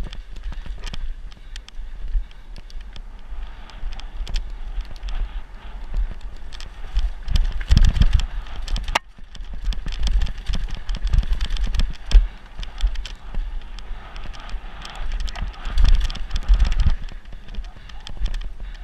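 Mountain bike descending a rough dirt singletrack at speed: tyres on dirt, steady wind rumble on the microphone, and frequent clicks and rattles from the bike over the bumps, with a sharp knock about nine seconds in.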